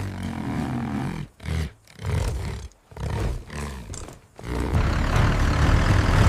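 A bull bellowing: about four deep, drawn-out calls with short gaps. About four and a half seconds in, a steady, louder rumble sets in and covers them.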